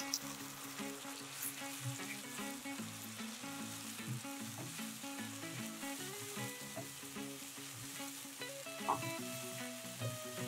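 Tomato paste and onions sizzling in hot oil in a nonstick pan while a wooden spatula stirs and scrapes them around, with background music underneath.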